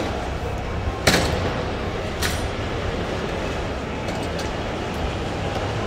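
Steady rumbling background noise of a large, echoing exhibition hall, with a sharp knock about a second in and a weaker one a little after two seconds.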